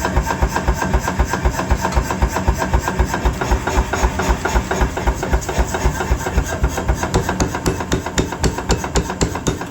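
Power hammer running with a steady rapid beat of about four to five blows a second; from about seven seconds in the blows turn sharper, metal-on-metal strikes as the ram works the stock.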